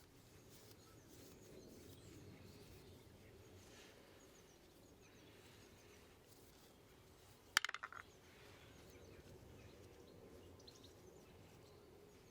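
Near silence with faint background noise, broken a little after halfway by a brief clatter of four or five quick, sharp clicks.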